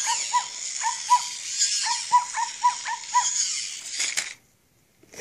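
Zoomer robot dog doing its dance routine: a quick run of short electronic beeping notes, about three to four a second, over a steady whirring hiss of its motors as it spins. The sound cuts off abruptly near the end.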